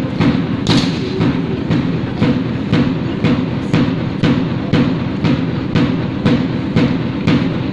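Drum cadence keeping time for a rifle drill team: sharp strikes at an even pace of about two a second over a steady low background.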